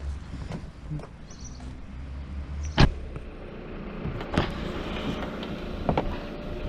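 Someone settling into a car seat: rustling and small knocks, with one loud sharp thump about three seconds in and a few lighter clicks later, over a low steady rumble.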